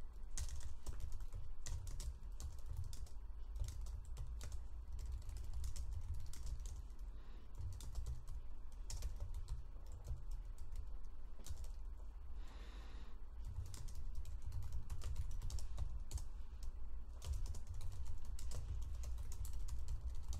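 Typing on a computer keyboard: a quick, uneven run of keystrokes, with a brief pause partway through.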